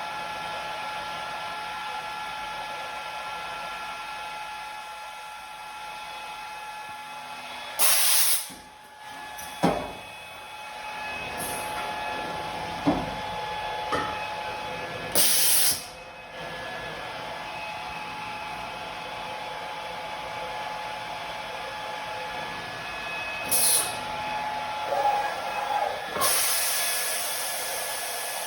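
Morbidelli CX 100 vertical CNC machining center running with a steady motor whine. Several short, loud blasts of compressed air hiss through it, with a few sharp clunks from the machine's moving parts.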